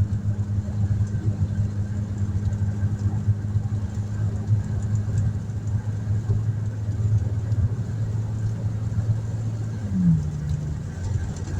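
Car driving on a dirt road, heard from inside the cabin: a steady low drone of engine and road noise. About ten seconds in, the engine note briefly shifts in pitch.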